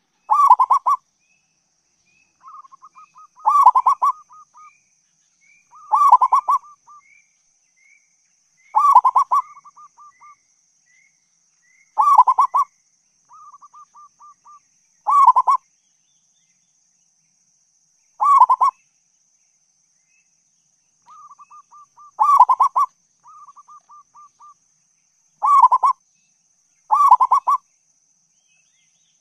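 Local-strain zebra dove (perkutut) singing: about ten loud, stuttering coo phrases roughly every three seconds, with softer runs of quick notes between some of them. A faint steady high whine runs underneath.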